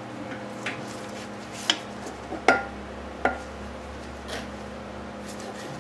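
Metal clinks and taps as a piston with its rings is worked into the cylinder of a Stover CT-2 hit-and-miss engine, the rings catching at the mouth of the bore. Three sharper clinks come at about one and a half, two and a half and three and a quarter seconds in, the later two ringing briefly.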